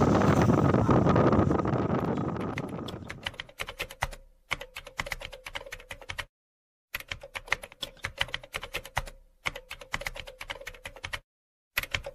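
Wind noise on the microphone and outdoor rumble fade out over the first three seconds. Then a keyboard typing sound effect plays: rapid key clicks in runs of about two seconds, with short pauses between them.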